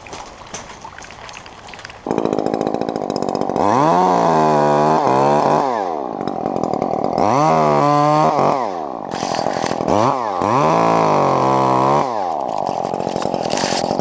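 Two-stroke chainsaw starts running about two seconds in and is revved up and down three times.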